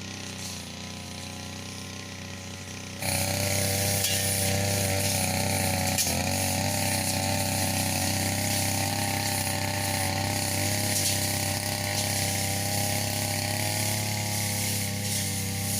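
Brush cutter's small two-stroke engine running steadily, with its note and a broad hissing noise getting sharply louder about three seconds in.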